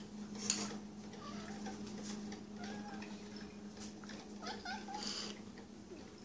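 Domestic cats giving a few soft, short meows at feeding time, with a sharp light knock about half a second in.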